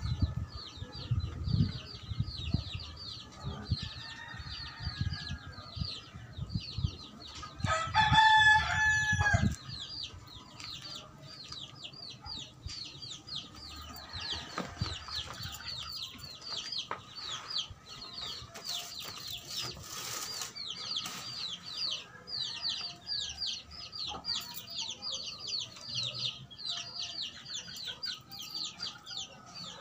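A rooster crows once, loudly, about eight seconds in, over a continuous rapid high-pitched chirping. Low thumps sound through the first nine seconds.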